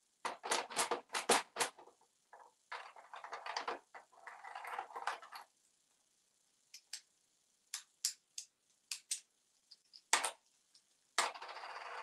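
African grey parrot working its beak through toy coins in a plastic play-money tray: a quick run of clicks and clinks, a few seconds of rustling, then scattered single taps, with another click and rustle near the end.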